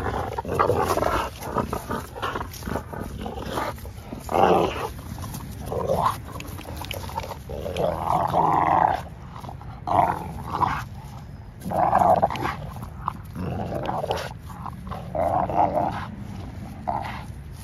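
Two XL bully dogs growling in short repeated bouts as they play tug-of-war over a rope toy.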